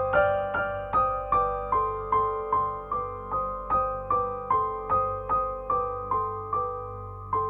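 Background music: a soft keyboard playing evenly spaced single notes, about two and a half a second, over a steady low tone.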